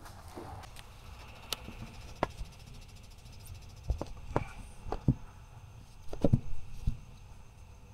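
Irregular clicks and knocks of hands handling parts at a car's hood latch sensors, with a cluster of sharper knocks near the end.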